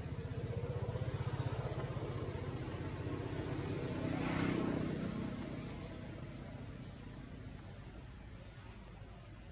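A motor vehicle's engine passing by: its low rumble builds, swells to a peak about four and a half seconds in, then fades, over a steady high whine of insects.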